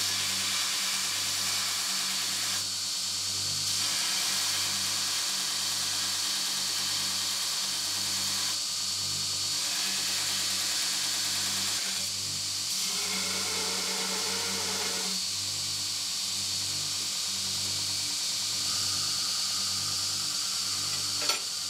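Electric grinder running while a stainless-steel chisel blade is pressed to it and ground into shape, a steady hissing grind with a low throb repeating about once a second.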